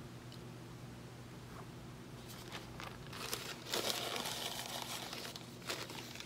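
Paper napkin rustling and crinkling as it is wiped over the mouth, starting about two seconds in and loudest near the middle, with a few sharper crackles.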